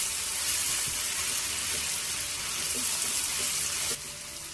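Onions, green chillies and ginger-garlic paste sizzling in hot oil in a frying pan as they are stirred, a steady high hiss that drops in level about four seconds in.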